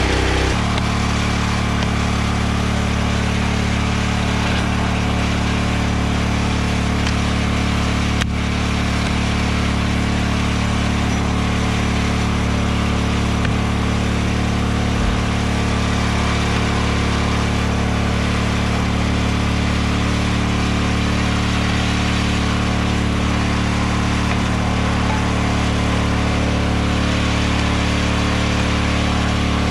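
Small gasoline engine of a hydraulic log splitter running steadily at idle, its pitch unchanging throughout.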